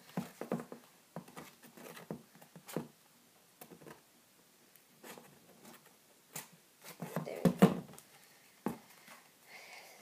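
Folded white paper being handled and pressed on a cardboard box: irregular light taps and paper rustles, with a louder cluster about three-quarters of the way through.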